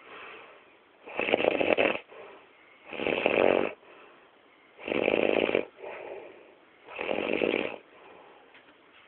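Snoring: four long snores about two seconds apart, with fainter breaths between them.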